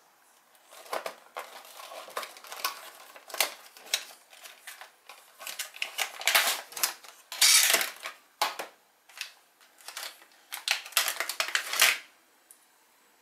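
Unboxing: a cardboard box and a clear plastic blister tray being handled and pulled apart, giving irregular rustles, scrapes and crinkles. The loudest is a longer scrape a little past halfway, and the handling stops about a second before the end.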